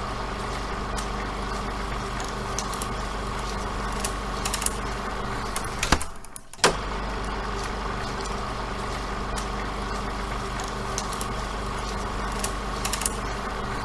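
A steady motor hum with faint scattered clicks. It cuts out briefly about six seconds in and then resumes unchanged.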